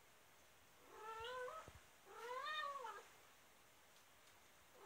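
Domestic cat meowing twice: a short rising meow, then a longer one that rises and falls in pitch.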